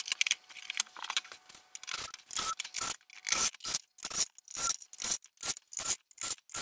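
Wood screws being turned by hand into a plywood speaker-cabinet back panel: a run of short scraping twists, about two a second, some with a faint squeak.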